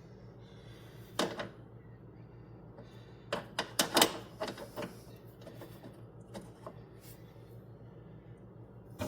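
Sharp clicks and knocks of hand work on metal parts: one about a second in, then a quick cluster of them around the middle, over a steady low hum.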